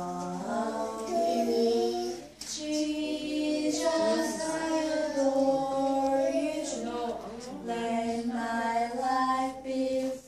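Young children and a woman singing a children's action song together, without instruments, in short held notes.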